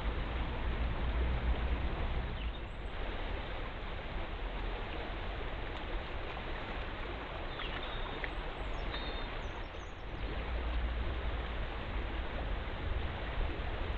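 Fast-flowing river rushing steadily, with a few faint high chirps a little past the middle.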